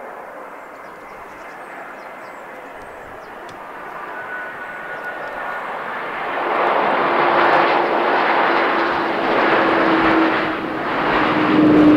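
Airbus A220-300's Pratt & Whitney geared turbofan engines on landing: a steady jet rush that grows as the airliner nears and swells sharply about six seconds in, as it touches down and rolls out, with a steady hum running through it.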